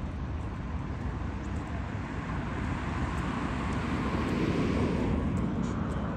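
A passing vehicle: a low rumble and wash of noise that swells to a peak about four to five seconds in and then fades.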